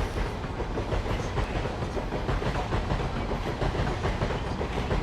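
London Underground tube train pulling out of the station: steady running noise of wheels on the rails, with some clickety-clack from the track.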